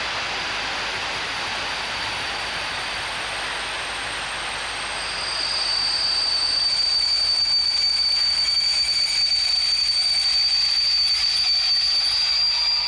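Passenger train rolling slowly along a station platform, a steady rushing noise of the coaches. About five seconds in, a loud, high-pitched metallic squeal from the wheels sets in and holds steady.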